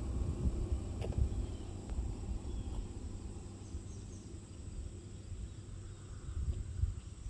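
Roadside outdoor ambience: insects buzzing in one steady high tone over a low, uneven rumble, with a single sharp click about a second in.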